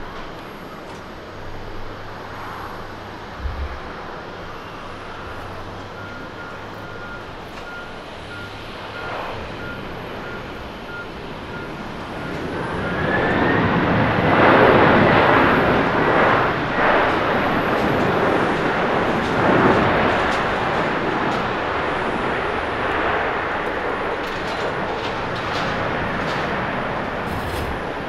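Boeing 767-300ER's GE CF6 jet engines during the landing rollout: a thin engine whine rises in pitch about 12 seconds in as the engines spool up in reverse thrust, then a loud roar of the thrust reversers holds for several seconds and slowly eases off as the jet slows.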